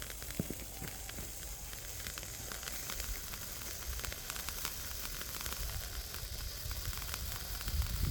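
A small green smoke-bomb firework burning with a steady hiss and scattered faint crackles. Wind buffets the microphone underneath.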